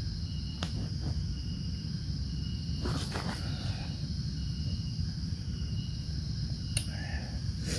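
Insects calling steadily: a continuous high drone, with a second, lower insect call that repeats about once a second, over a low steady rumble. There are a few small clicks and rustles.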